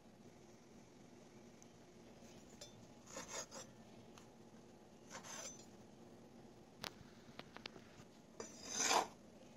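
Kitchen knife cutting grilled eggplant on a wooden cutting board: a few soft, separate scraping strokes with small ticks between them, the loudest stroke near the end.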